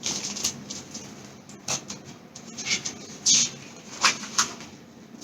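Soft rustling and a few light clicks from a paperback picture book being handled, a page turned, louder about three seconds in.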